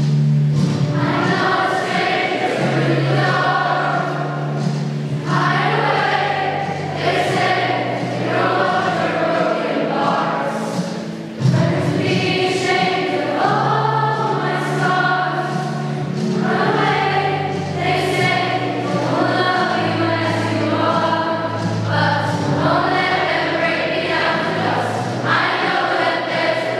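Mass choir of several hundred school pupils singing a song together, with a brief dip about eleven seconds in before the next phrase comes in loudly.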